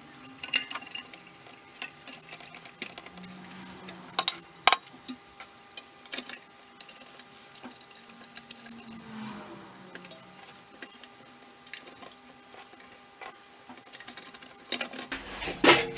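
Irregular metallic clicks and clinks of a bench grinder's sheet-metal wheel guard being handled and pushed back into place over the wire wheel.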